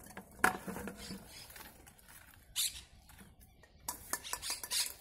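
Sharp clicks, knocks and short clatters from handling a plastic bucket and a live eel as it is lifted out. There is one loud knock about half a second in and a quick run of clicks near the end.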